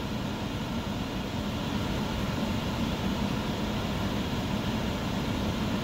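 Steady low hum with an even rush of air: the running background noise of a car, its ventilation fan blowing.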